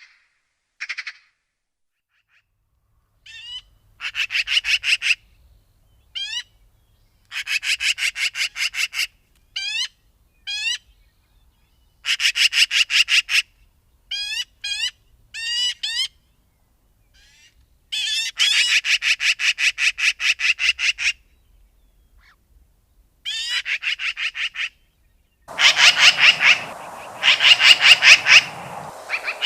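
Magpie chattering: harsh rattling bursts of about ten rapid notes a second, each burst lasting one to three seconds, with single sharp rising notes in between. Near the end the chatter continues over a noisier background.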